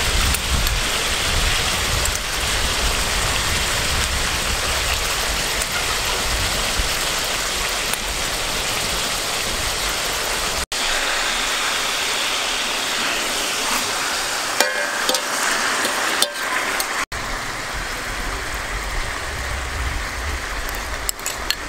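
Steady sizzling hiss of a whole chicken roasting on banana leaves in a hot aluminium pot. Past the middle come a few brief scrapes of a metal spoon against the pot.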